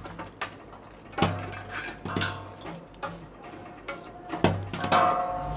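Metal spoon scraping and clanking in an iron kadai of hot salt as popcorn is stirred. Scattered sharp clicks and knocks, a few with a brief metallic ring, the loudest about four and a half seconds in.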